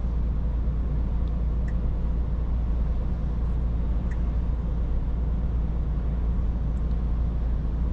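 Scania S450 truck cruising steadily on a motorway, heard from inside the cab: a continuous low drone from its 13-litre straight-six diesel, mixed with tyre and road noise.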